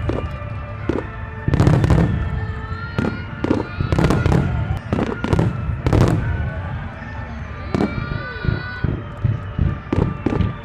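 Aerial fireworks bursting one after another at an uneven pace, about a dozen loud bangs over a steady background din.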